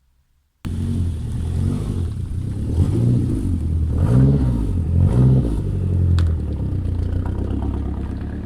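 Volvo 480 Turbo's 1.7-litre turbocharged four-cylinder engine running. It cuts in suddenly about half a second in, and the revs rise and fall three times in quick succession.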